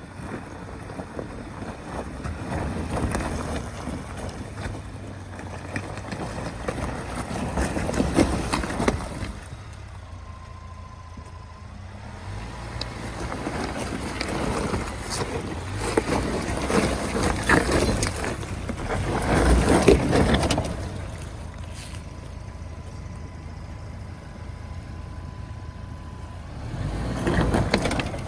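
A 2019 Ford Ranger's 2.3 L EcoBoost engine climbing a loose-rock hill in four-wheel drive, rising in several surges of power, loudest about two-thirds through. Its 33-inch tires crunch and scrabble over the loose stones, and the front wheel spins, throwing dust, as the traction control works for grip.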